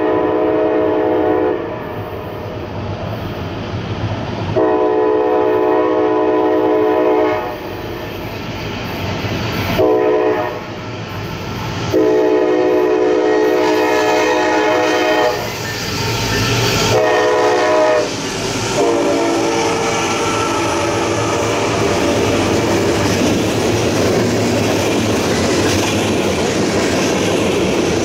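CSX freight locomotive's multi-chime horn sounding a long-long-short-long grade-crossing signal, with two more blasts as it draws close. The train then passes close by, its cars rumbling and clacking steadily over the rails.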